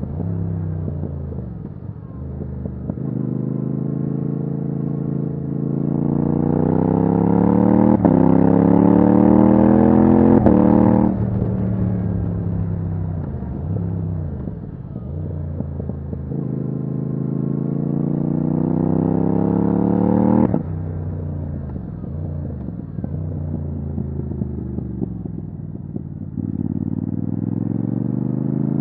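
Yamaha MT-07's parallel-twin engine through a titanium Akrapovic exhaust with no dB killer, accelerating hard twice, its pitch climbing and then cutting off sharply as the throttle closes, falling away on the overrun after each. It picks up and climbs again near the end.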